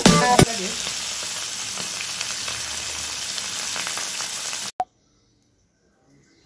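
Pieces of fish frying in hot oil in a pan: a steady sizzle with small crackles. Background music fades out just after the start, and near the end the sizzle cuts off abruptly with a click.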